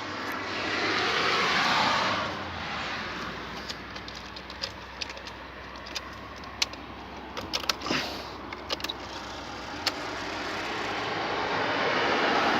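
Iveco Eurotech truck's diesel engine running cold with a steady low hum, a hiss in the first two seconds and scattered sharp clicks, the sound building toward the end.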